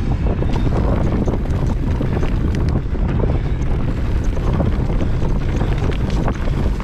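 Wind buffeting the camera microphone as a mountain bike rolls down a dirt singletrack, with scattered small clicks and rattles from the bike and the trail.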